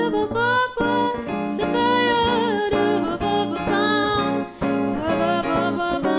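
Swing trio of guitar and piano playing, with a melody line that bends in pitch over the chords.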